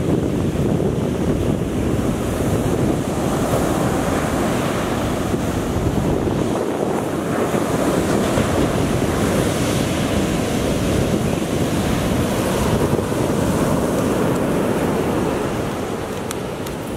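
Ocean surf breaking and washing up the beach, steady throughout, with wind buffeting the microphone.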